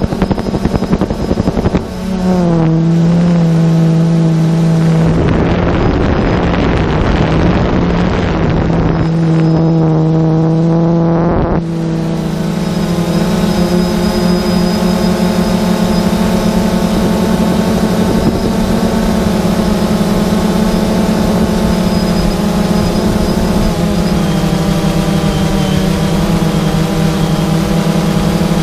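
Drone motors and propellers buzzing steadily in flight. The pitch drops about two seconds in and steps back up near the twelve-second mark. Wind rushes over the onboard microphone through the middle.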